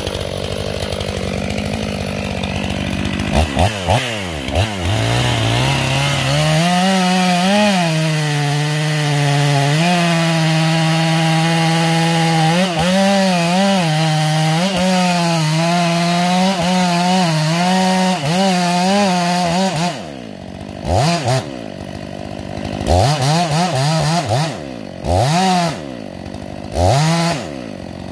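Stihl MS 500i fuel-injected two-stroke chainsaw idling and revved briefly, then held at full throttle cutting into the trunk of a large tree for about fourteen seconds, its pitch dipping slightly under load. It then drops back to idle, with several short throttle blips near the end.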